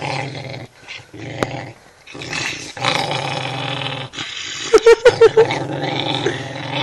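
Small dog growling in long, low rumbles with short breaks for breath, and several short, loud, higher-pitched snarls about five seconds in. She is guarding her chew bone against the person reaching for it.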